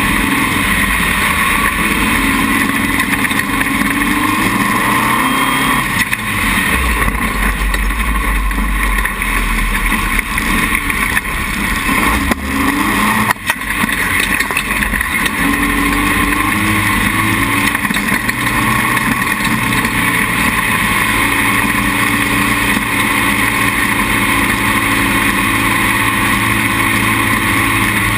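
Dune buggy engine running steadily as the buggy drives across loose sand. Its pitch steps up and down a few times, and there is a brief knock about halfway through.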